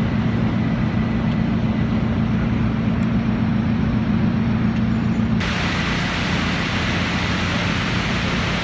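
Steady city traffic noise with a low hum. It changes abruptly about five seconds in and turns hissier.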